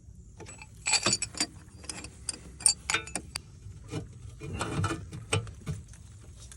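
Metal hand tools clinking and clanking as they are handled, an irregular string of sharp clicks.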